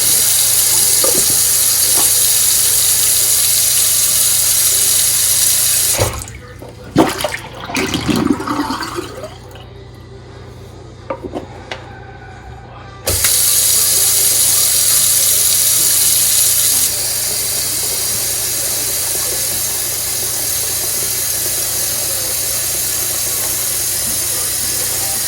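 Kitchen faucet running hard into the sink, shut off for about seven seconds while a few clunks and knocks sound, then turned back on; the rush drops a little about four seconds later. The sink is being filled to test the freshly snaked drain.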